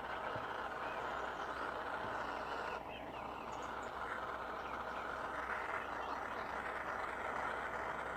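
Soldering torch flame running steadily as it heats silver for soldering, dipping briefly about three seconds in.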